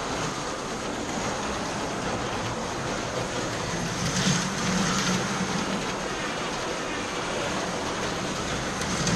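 Slot cars running round a plastic track: a steady whir of small electric motors with the rattle of tyres and guide pickups on the track, swelling briefly about four seconds in.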